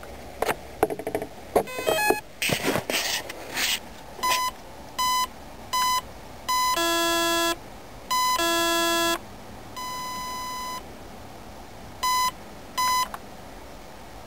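An ETTI electronic speed controller in a model boat sounding its programming beeps: short beeps, two longer two-toned beeps, one long softer beep and two more short ones, as it steps through the cutoff-voltage setting to be set to no cutoff. A few clicks and knocks of handling come first.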